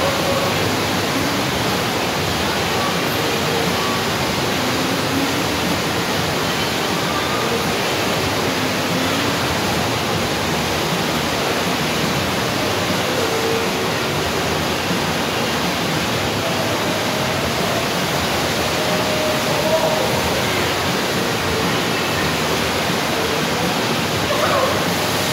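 Steady loud rush of water from an indoor standing-wave surf pool: pumped water pouring and churning over the stationary wave.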